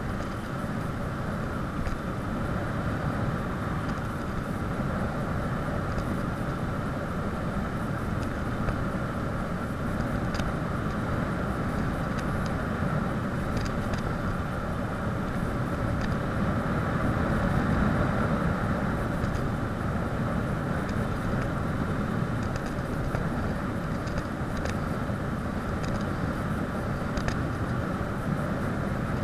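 Steady rush of wind and tyre noise from a bicycle coasting fast downhill on a paved mountain road.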